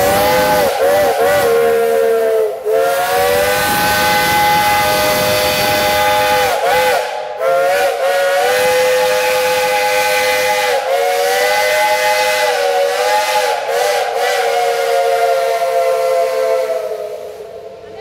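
Steam whistle of Shay geared locomotive No. 6 blowing a long blast, several notes sounding together. Its pitch dips and wavers several times, and it fades out near the end.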